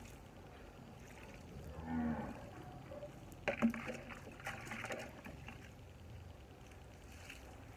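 A plastic watering can clattering and scooping water inside a plastic bucket, with a burst of knocks and splashing a little over halfway through. A short pitched call sounds about two seconds in.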